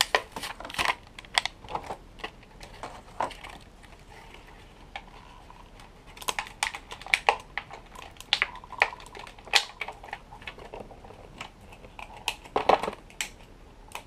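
Irregular sharp clicks and taps of a toy's clear plastic blister pack and cardboard backing being handled and pried open, with a louder cluster near the end.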